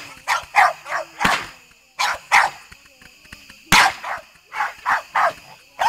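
A dog barking repeatedly, in quick runs of two or three barks.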